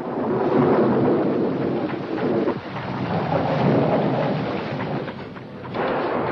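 Thunder rumbling in long rolling peals over rain, a storm sound effect. The rumble eases briefly about two and a half seconds in and again near the end before swelling back.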